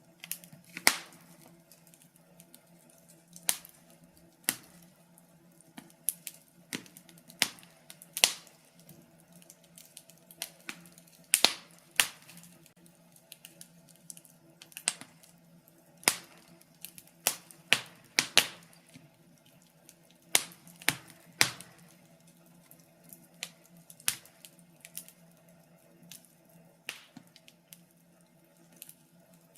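Wood fire in a fireplace crackling, with sharp irregular pops of burning logs every second or so, some in quick clusters, over a faint steady low hum.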